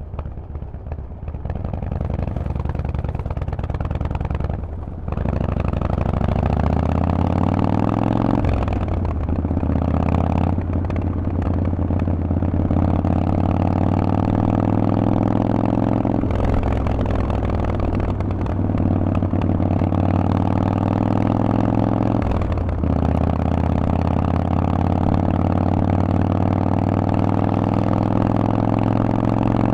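Harley-Davidson Forty-Eight's air-cooled 1200 cc V-twin running through Vance & Hines exhaust pipes under way. The note climbs steadily, breaks off and drops at each of several gear or throttle changes, then climbs again.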